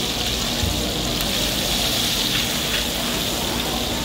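Mung bean pancakes sizzling steadily as they fry in a shallow pool of hot oil on a flat griddle.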